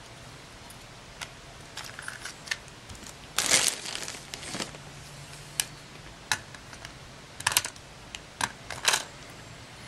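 Light clicks and clatters of a partly disassembled Canon PowerShot SX130's plastic body and small tools being handled, over a faint low hum. The loudest cluster comes a little after three seconds in, with scattered single clicks after it.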